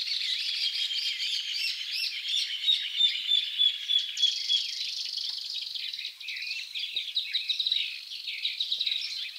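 Several songbirds chirping and trilling together in a dense, busy chorus of high calls, with one bird repeating a short note in a quick even series about three seconds in.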